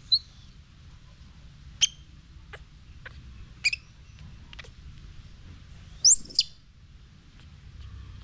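Baby monkey giving short, high-pitched squeaks, three brief ones in the first four seconds, then a louder, longer call about six seconds in that rises and falls in pitch.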